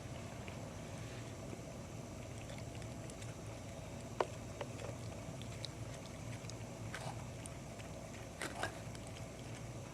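Cat chewing and tearing at cat grass: a few faint scattered clicks and crunches, the sharpest about four seconds in and a pair near the end, over a steady low room hum.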